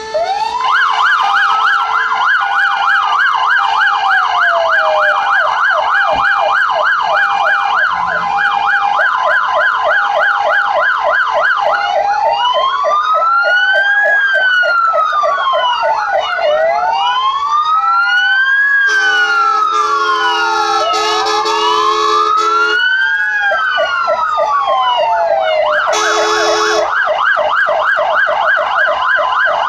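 Several fire engines' sirens sounding together: a fast warbling yelp, slow rising-and-falling wails and a two-note hi-lo tone overlapping, the sirens winding up at the start. A horn blasts for about four seconds past the middle and again briefly near the end.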